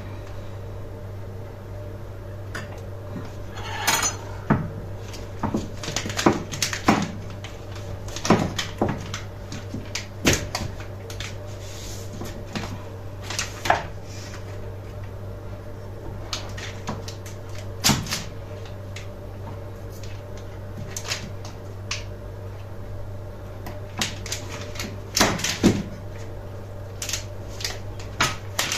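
Kitchen handling sounds: scattered knocks and clinks of utensils, dishes and cupboard doors, irregular and a few seconds apart, over a steady low hum.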